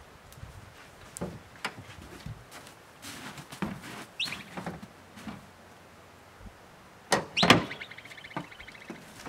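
A dog scuffling after a groundhog trapped under an old car: scattered knocks and scrapes, two loud sharp sounds about seven seconds in, then a fast, high chattering trill for about a second.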